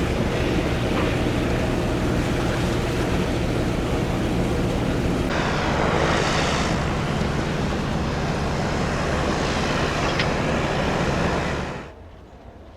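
Sailboat's small inboard diesel running steadily under way, with wind and water rushing past the boat. Everything drops away sharply near the end.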